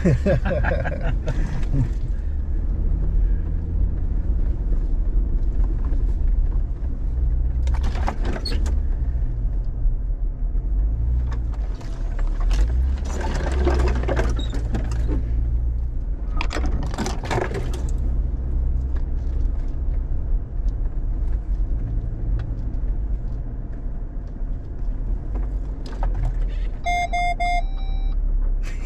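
Jeep Gladiator Rubicon driving slowly along a rough off-road trail: a steady low engine and drivetrain rumble, with a few louder noisy stretches about 8, 13 and 17 seconds in. Near the end a short electronic chime of a few stepped tones sounds.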